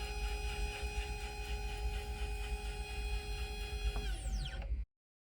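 Small hobby CNC mill's spindle motor running at a steady speed with a high multi-tone whine over a low hum, then spinning down about four seconds in. The audio cuts off abruptly near the end.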